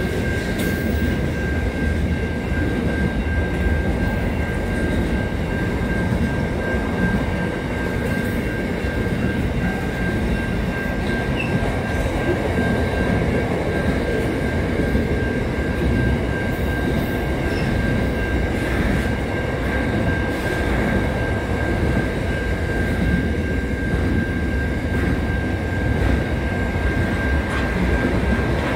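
Freight train wagons rolling past, a steady rumble of steel wheels on the rails. A constant high-pitched whine sits over it without a break.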